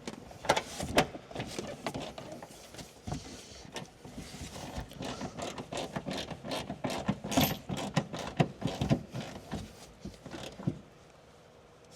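Hand ratchet clicking in irregular runs with metal tool clinks as nuts are tightened on the car's suspension, stopping about a second before the end.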